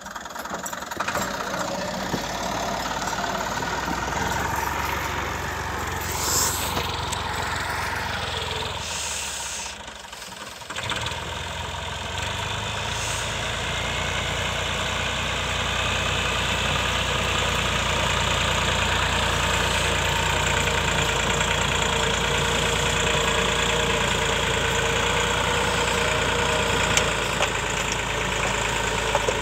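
Tractor's diesel engine running steadily. Its sound drops away for a moment about ten seconds in, then comes back and holds steady.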